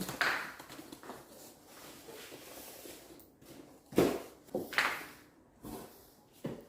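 Handling noises: faint rustling with a few short knocks, the loudest about four seconds in and two more soon after, then one near the end.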